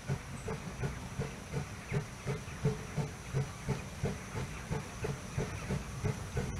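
Narrow-gauge steam locomotive working up the line, its exhaust beating in a steady rhythm of about three chuffs a second over a hiss of steam.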